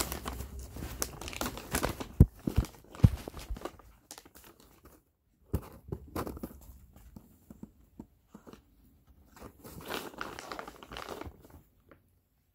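A plastic dog-treat bag crinkling and tearing as it is opened and handled, with two sharp cracks two to three seconds in. Shorter bursts of rustling follow, with near-quiet gaps between them.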